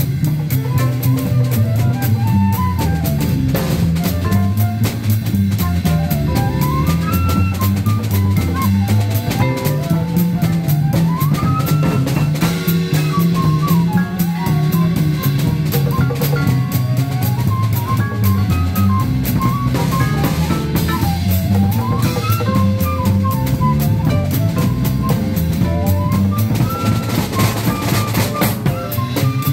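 Small jazz band playing live: a bass line stepping from note to note under quick melodic runs that climb and fall, with a drum kit keeping time on cymbals and drums.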